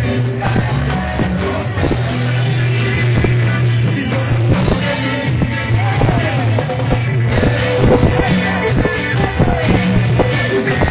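Music with singing, in a rock style with guitar and drums.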